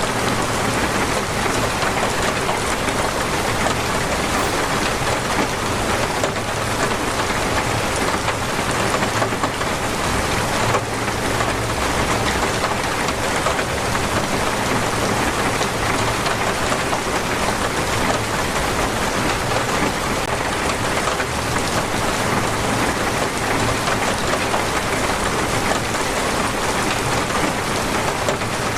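Heavy, torrential rain falling steadily, a dense even hiss of drops on surfaces.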